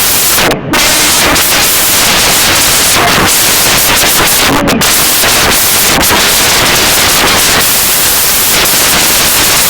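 Digital glitch sound effect: loud, harsh static and crackling noise that cuts out briefly just after the start and again about halfway through.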